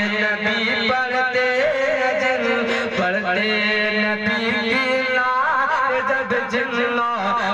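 A man singing a naat, an Urdu devotional poem in praise of the Prophet, into a microphone, with long held and gliding melismatic notes over a steady low drone.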